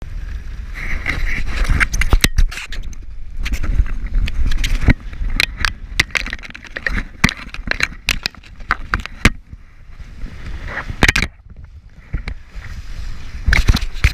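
A moving jet ski in rough sea heard through a GoPro's waterproof housing: a low rumble with wind and spray hissing on the case, broken by many sharp knocks and scrapes as the camera is handled and water hits it.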